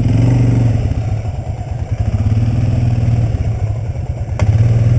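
Suzuki Vinson 500 ATV's single-cylinder engine revving in repeated surges about every two seconds as the stuck quad is driven to get free. A single sharp knock comes near the end.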